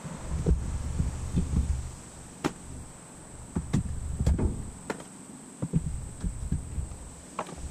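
Gusts of wind rumbling on the microphone, with scattered light knocks and clicks.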